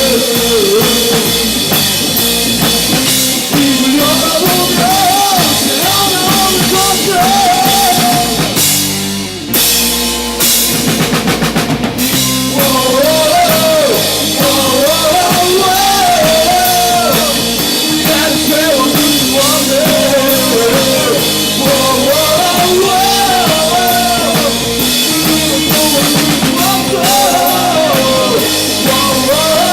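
Rock band playing with a drum kit and a wavering melody line. About nine and a half seconds in, the band breaks briefly for a quick run of even drum strikes, then comes back in full about twelve seconds in.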